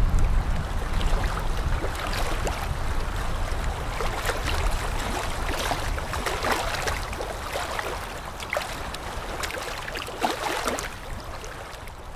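Ocean waves sloshing and splashing over a low rumble of surf, slowly fading out.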